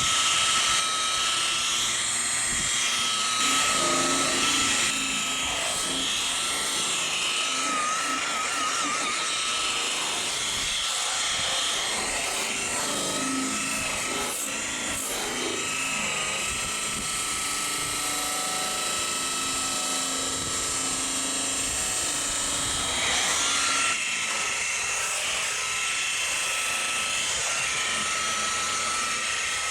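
Steady motor whir with a constant high-pitched tone, running without a break.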